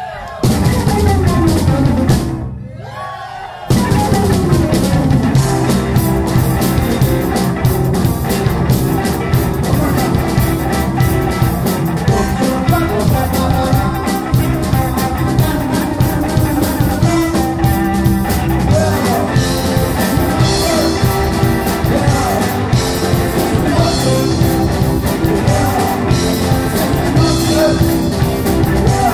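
Live rock band playing: drum kit, electric guitar and synthesizer keyboards, with a singing voice. The band stops short twice in the first few seconds, letting the sound ring out, then comes back in at full volume about four seconds in.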